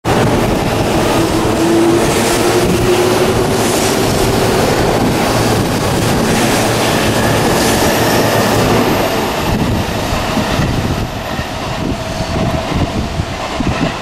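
Jōban Line local electric commuter train pulling away, with a rising whine from its motors in the first few seconds over the steady rumble of wheels on the rails. The noise eases somewhat near the end as the train draws off.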